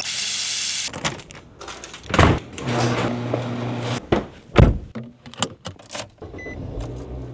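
Car sounds in quick succession: a door thudding shut, a steady motor hum for about a second, and keys jangling in the ignition as the key is turned.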